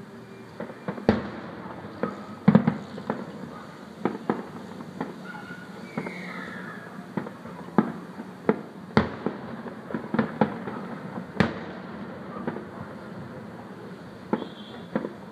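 Aerial firework shells bursting in the distance: an irregular series of bangs and cracks, some in quick clusters, the loudest about two and a half seconds in.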